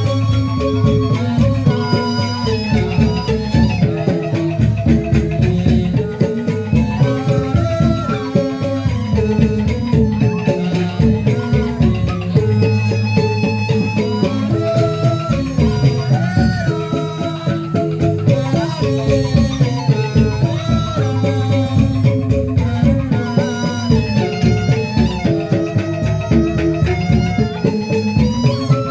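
Instrumental music: plucked or struck melody lines over steady, busy percussion.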